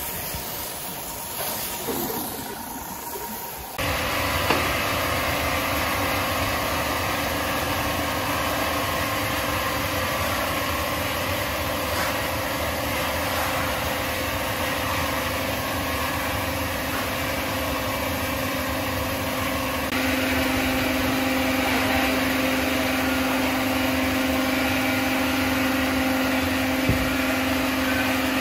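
Sawmill machinery running steadily, with a constant hum. It comes in abruptly about four seconds in, and its hum grows stronger about twenty seconds in.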